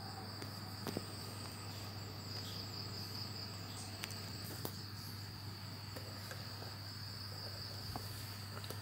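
Faint, steady high-pitched trill over a low steady hum, with a few faint clicks; no engine is running.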